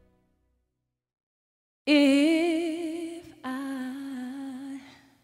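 After about two seconds of silence, a woman sings two long, unaccompanied notes with wide vibrato. The second note is slightly lower and fades out near the end.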